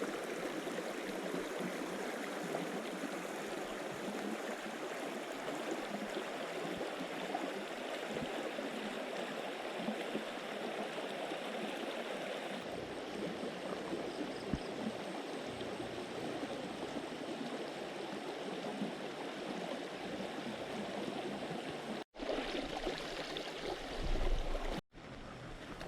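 River water flowing, a steady rushing sound, broken by two short dropouts near the end.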